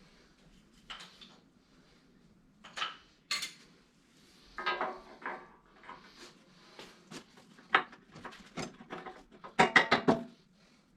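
Metal parts and tools clinking and knocking as the worn grader blade's pivot and bushing area is worked on by hand: irregular knocks, with a quick loud cluster of clanks near the end.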